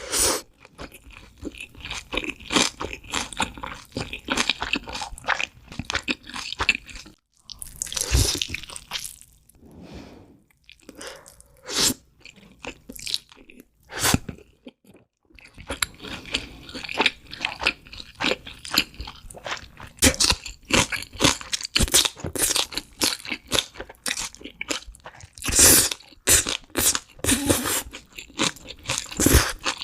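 A person eating crunchy food close to the microphone: rapid, dense crunching and chewing crackles, broken by two short pauses about a quarter and about half of the way through.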